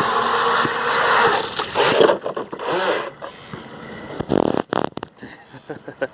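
Radio-controlled 3D-printed jetsprint boat running on the water, its jet drive and spray loud for about two seconds and then falling away, with a few short whines about four to five seconds in.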